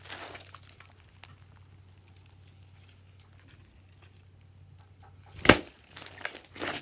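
Glossy slime being squished and stretched by hand: sticky crackles and small pops of trapped air. A quiet stretch in the middle, then one sharp loud pop near the end, followed by more crackling.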